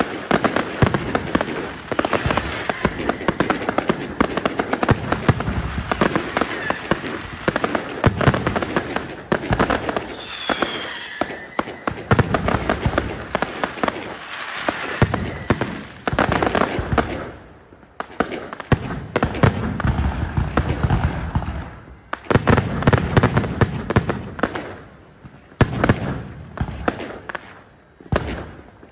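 Fireworks going off in a dense, continuous barrage of pops, bangs and crackle, with a couple of short whistles around the middle. The barrage drops away briefly several times in the second half before picking up again.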